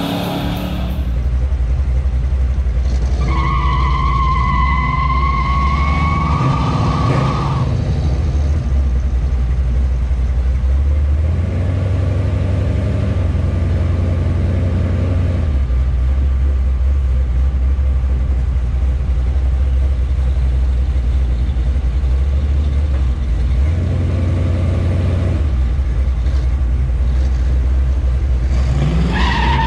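Small-block V8 of a squarebody Chevrolet K20 pickup idling with a deep, steady low rumble close to the hood-mounted camera, its note shifting slightly a few times. A high squeal, likely tyres, cuts in about three seconds in and lasts about four seconds, and a rising rev sweeps up near the end.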